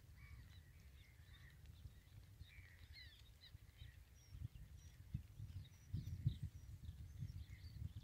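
Faint birds chirping and calling, many short calls overlapping, over a low wind rumble on the microphone that gusts louder about six seconds in.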